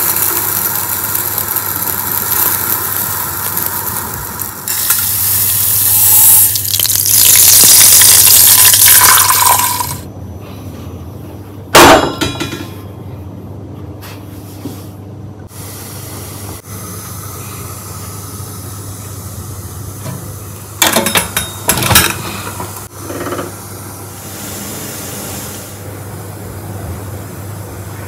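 Running water hissing steadily for about ten seconds, then cutting off suddenly. Afterwards a few sharp clinks and knocks of kitchen items sound over a low steady hum.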